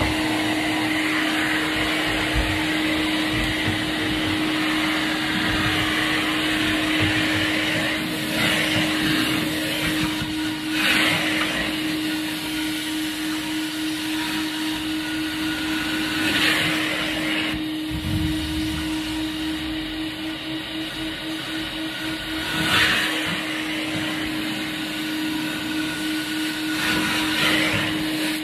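Cleaning extraction machine's vacuum running steadily through an upholstery hand tool held against curtain fabric, recovering a sprayed-on cleaning agent (dry vacuum recovery). A steady motor hum sits under the rushing suction, which swells briefly several times.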